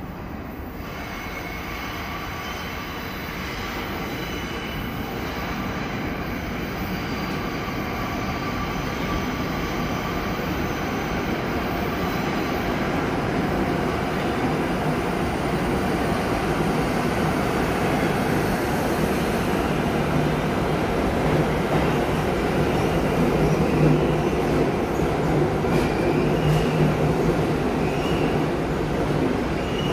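R62A subway train on the (1) line pulling into the station, its rumble growing steadily louder as it approaches and rolls along the platform. A low steady hum comes in during the last third, with short high squeals near the end.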